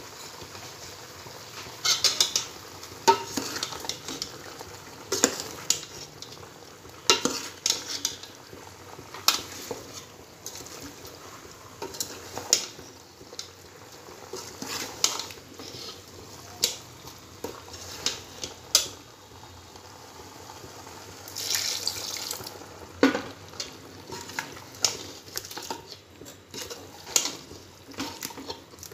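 Steel ladle scraping and clinking against a steel cooking pot while mutton and ground spices are stirred together, in irregular scrapes and knocks every second or so. A faint steady sizzle of the masala frying runs underneath.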